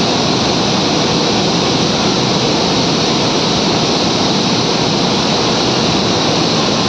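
Steady, loud, unbroken roar of flour-mill machinery running, an even wash of noise with no clear rhythm or tone.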